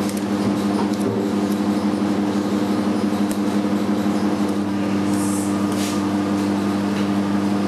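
Steady electrical machine hum, a low drone with two strong steady tones, from kitchen equipment such as a motor or compressor running. A few faint light clicks and a soft rustle from handling lids and labels come about five to six seconds in.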